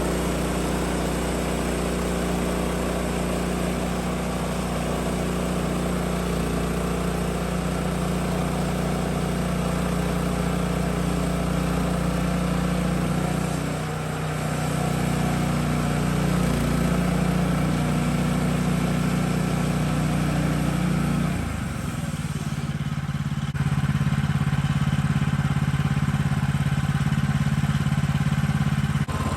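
Sawmill engine running steadily; about 21 seconds in its note drops and changes, and a couple of seconds later it grows louder.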